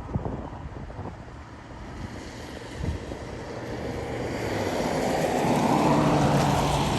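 A vehicle passing on the highway, its tyre and engine noise swelling over several seconds to a peak about six seconds in, over low wind rumble on the microphone.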